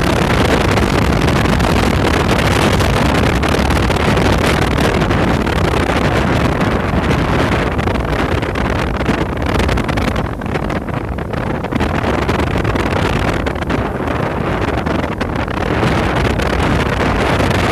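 Wind buffeting the microphone aboard a moving river ferry, over the boat's rumble and water noise; the gusts ease briefly about ten seconds in.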